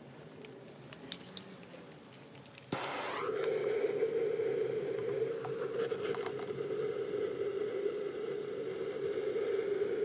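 Handheld butane torch on a cassette gas canister: a few light metallic clicks, then a sharp click as it lights about three seconds in, followed by a steady hissing flame. The flame is scorching the inside of a wooden hive box.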